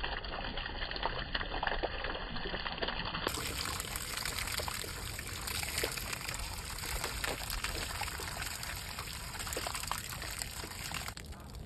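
Dirty carpet-extraction water pouring in a steady stream out of a Bissell Little Green Pro's dirty-water tank and splashing onto the ground.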